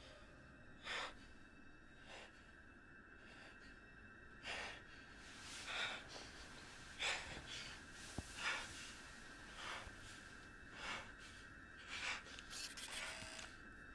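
A man breathing hard in short audible breaths, about one a second, over a faint steady high hum.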